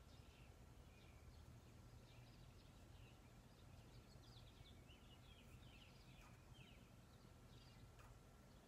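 Near silence with faint bird chirps, clustered in the middle, over a low steady hum.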